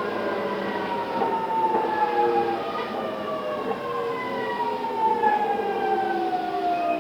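Traction motor and VVVF inverter whine of a JR East E217 series electric train in its original GTO-inverter form, heard inside a motor car. Several tones fall steadily in pitch as the train slows under braking.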